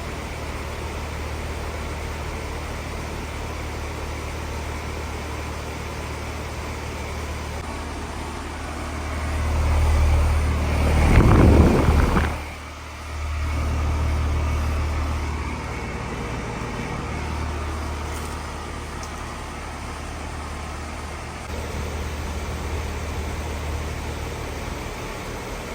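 Outdoor unit of a 2020 Heil N4H4 2-ton heat pump running in cool mode, with its Copeland scroll compressor and condenser fan making a steady low hum. About eight seconds in, a louder rushing swell builds, peaks and cuts off sharply a few seconds later, then the steady hum carries on.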